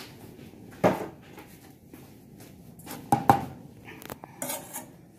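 A metal spoon stirring a thick chocolate topping mixture in a saucepan, scraping and knocking against the pan, with sharp clinks about a second in and again just after three seconds.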